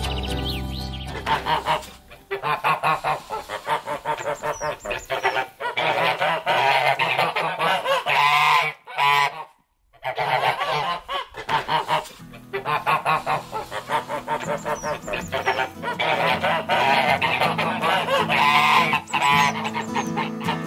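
Domestic geese honking in rapid, repeated runs of calls, with a break of about a second near the middle.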